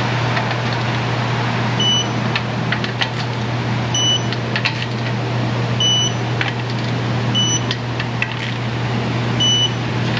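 A steady low hum with five short, high beeps spaced about two seconds apart.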